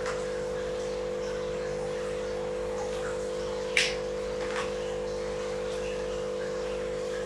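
A steady electrical-sounding hum, with a single ringing clink of tableware about four seconds in and a fainter tap just after.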